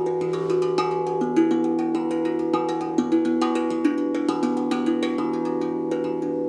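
Improvised ensemble music: held cello-like tones stepping slowly between pitches over a steady low drone, with frequent light strikes of bell-like percussion.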